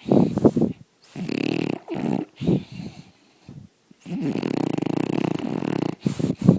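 A dog snoring loudly: about five snore breaths in a row, the longest lasting about two seconds from about four seconds in, with a fast rattling flutter.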